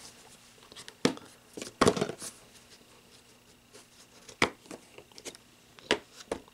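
Ruger molded plastic pistol case being handled and opened: a few sharp plastic clicks and knocks spaced out over several seconds, the loudest about two seconds in, as the case is turned round, its latches snapped open and the lid lifted.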